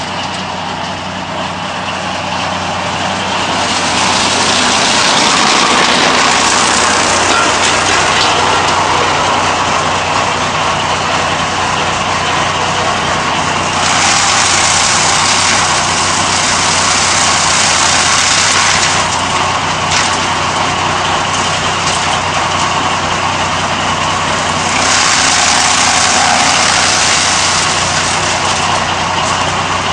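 Grass chaff cutter with a blower chute, driven by an electric motor, running with a steady mechanical hum. Three times the sound swells into a louder, hissing rush as stalks are cut and blown out through the chute.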